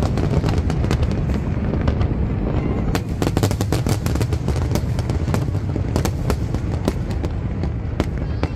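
Fireworks display with many aerial shells going off in quick succession: sharp pops and crackling over a continuous low rumble.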